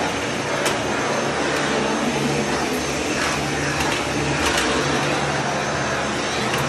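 Vacuum cleaner running steadily while its floor head is pushed across a tiled floor, with a few faint clicks.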